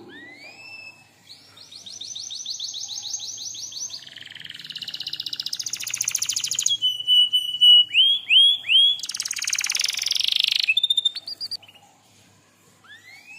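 Domestic canary singing: fast trills and buzzy rolls, a held whistle and upward-swooping notes, breaking off about two seconds before the end, with a couple of swoops again near the end.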